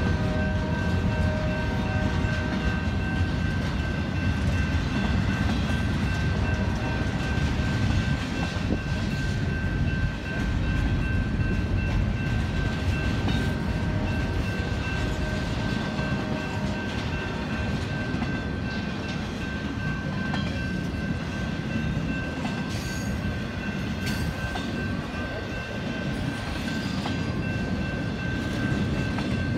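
Freight cars of a Union Pacific train rolling past at a grade crossing: a heavy, steady rumble with clattering from the wheels on the rails. A steady high ringing tone runs throughout.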